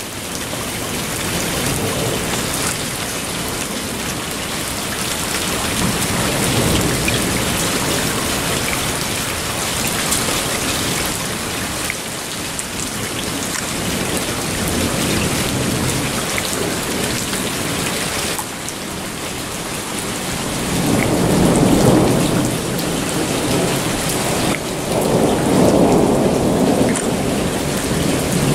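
Heavy rain pouring steadily onto a flooded yard, with two long rolls of thunder rumbling in under it in the last third.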